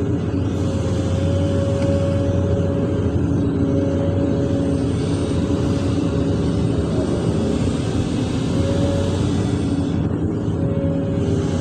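Large excavator's diesel engine running steadily, heard from inside the operator's cab, with a higher whine that swells and fades several times as the machine works.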